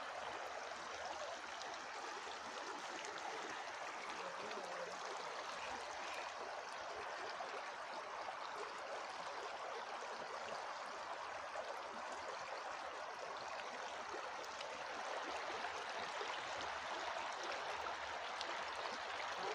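Shallow, fast river running over stones: a steady rushing of water, a little louder over the last few seconds.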